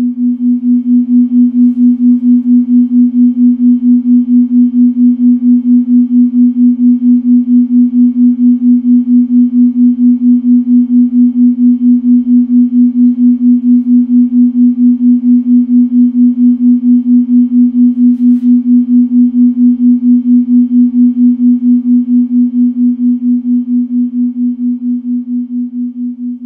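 A low, steady electronic tone throbbing in an even, fast pulse, like a pulsed sound-therapy tone. It swells up at the start and slowly fades over the last few seconds.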